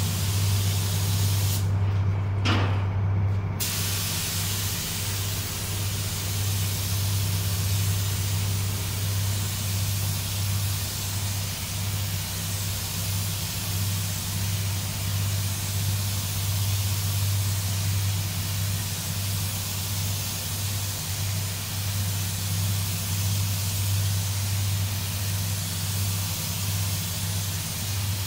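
Air spray gun hissing steadily as clearcoat is sprayed, over the steady low hum of the paint booth's fans. Near the start the hiss stops for about two seconds, with a single click in the pause, then it resumes.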